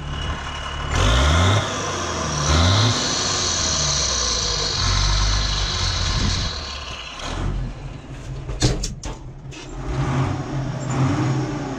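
Zetor tractor's turbocharged six-cylinder diesel engine, warmed up and running, briefly revved twice in the first three seconds and then settling back to a steady run. A few sharp clicks come about nine seconds in.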